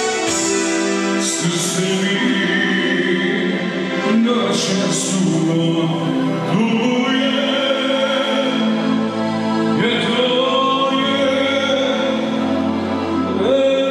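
Live male singer singing through a microphone and PA, with long held notes and sliding pitch, over band accompaniment that includes an accordion.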